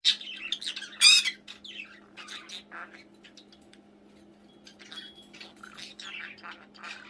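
Pet bird chirping and squawking in a rapid string of short high calls, the loudest a harsh squawk about a second in, thinning out in the middle and picking up again near the end. A steady low hum runs underneath.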